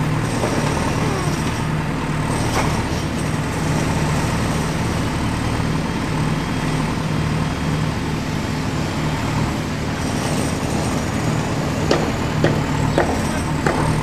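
Steady, rumbling truck-engine sound, like a diesel idling, of the kind used as an engine sound effect for toy construction vehicles. A few sharp clicks come about twelve to thirteen seconds in.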